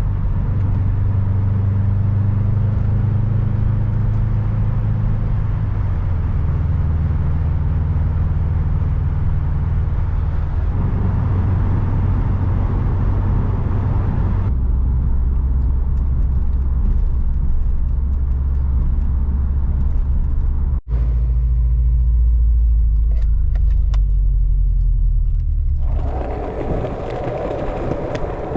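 A car driving: a steady low engine drone with road noise. Its pitch and level change abruptly several times, with a brief dropout about 21 seconds in.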